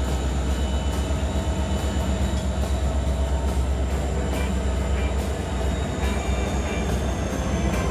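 A freight train's consist of diesel-electric locomotives, a Union Pacific unit leading Norfolk Southern units, rolling slowly past with a deep, steady engine drone and scattered light clicks from the wheels on the rails.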